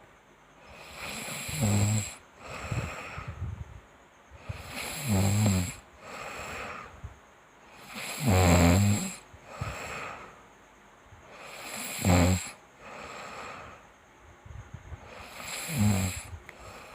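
A sleeping person snoring in a steady rhythm: five loud, low, rattling snores about three and a half seconds apart, each followed by a softer breathy exhale, the loudest in the middle.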